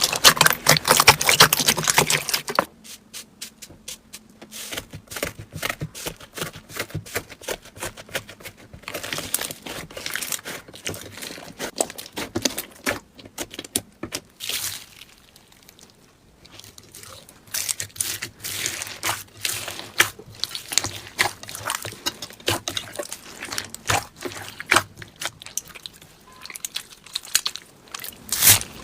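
Slime being squeezed and stretched by hand, giving a run of crackling, popping clicks. The clicks are dense for the first couple of seconds, then come more sparsely.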